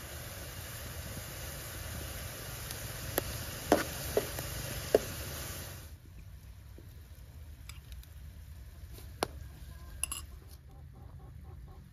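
Kitchen cooking sounds: a steady sizzling hiss with a few sharp clinks of a utensil against a pan or dish. The hiss cuts off suddenly about halfway through, leaving only a few soft clicks.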